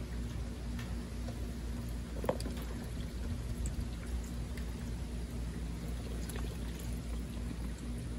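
A duck dabbling and slurping water from a shallow plastic tub, its bill scooping and dribbling water with small splashes and drips.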